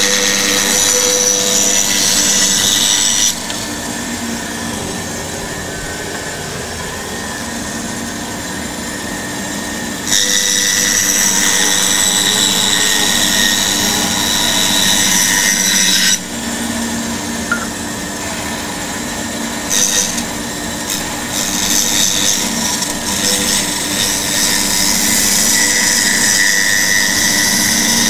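Axminster Trade bandsaw running, its blade cutting curved fish shapes out of a softwood board. The cutting noise comes in louder spells: in the first few seconds, again from about ten to sixteen seconds in, and through the last third. Between them the machine runs with a steady hum.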